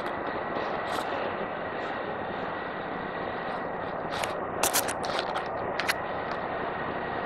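Steady engine and machinery noise in a ferry's enclosed vehicle deck, with a thin high steady tone running through it. A quick run of sharp clicks and knocks comes about four to six seconds in.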